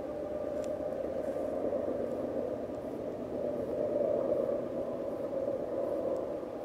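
Distant GE AC4400CW diesel-electric locomotives working under load at the head of a loaded grain train: a steady engine drone that swells a little about four seconds in.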